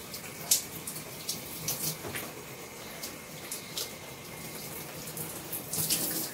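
Water running from a tap, steady, with scattered short splashes.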